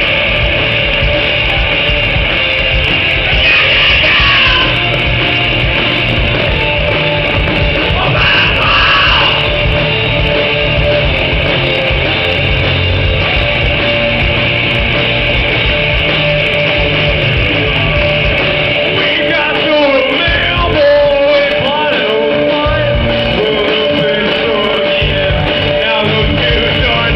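Live rock band playing loudly: electric guitars, bass and drums, with vocals.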